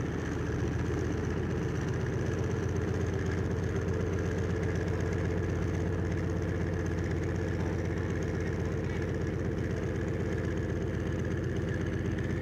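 Vultee V-1A's single radial aero engine running steadily at low power as the plane taxis, its propeller turning.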